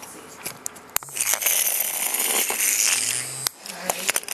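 Small vibration motor of a Hexbug Bobble Bot toy buzzing loudly from about a second in until just before the end, with sharp clicks and knocks from the plastic toys being handled.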